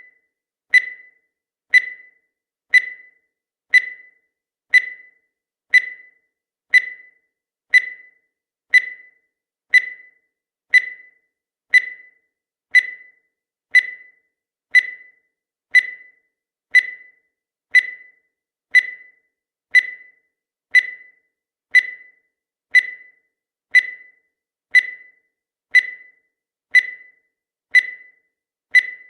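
Countdown timer sound effect: a short, high-pitched tick once every second, each with a brief ringing decay, steady and even throughout.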